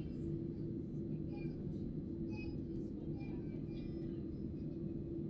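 Boeing 787-9 cabin noise during taxi after landing: the engines at idle and the cabin air systems make a steady low hum with a steady mid-pitched tone running through it.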